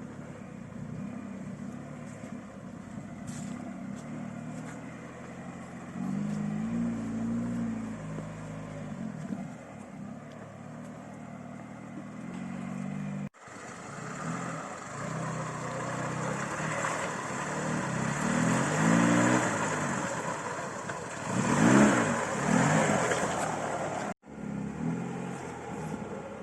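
Lada Niva four-cylinder engine driving off-road, the revs rising and falling in several swells, with a hiss that grows louder with the revs. The sound breaks off abruptly twice at edit cuts.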